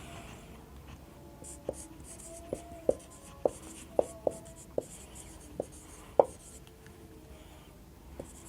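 Handwriting: pen strokes scratching on the writing surface, with about ten sharp taps between roughly 1.5 and 6 seconds in and short faint squeaks between them.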